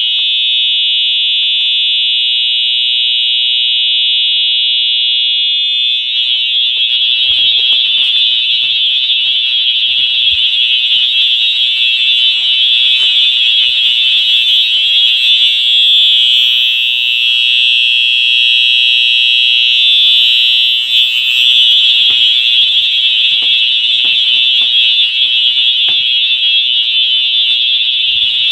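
Wheelock EH-EL1 electronic fire-alarm horn sounding continuously in alarm: a loud, steady, high-pitched electronic tone.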